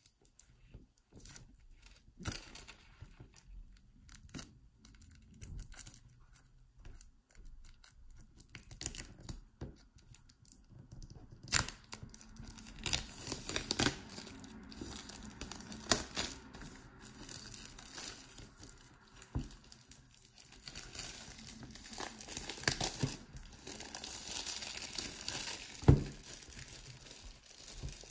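Clear plastic shrink-wrap being torn and peeled off a boxed pen set, crackling and crinkling. The crackles are sparse at first and grow denser and louder from about halfway through, with one sharp knock near the end.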